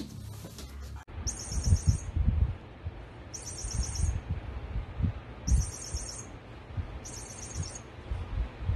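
Chirping bird cat toy: four short bursts of high, rapid electronic-sounding chirps, about two seconds apart, with low bumps and handling noise in between.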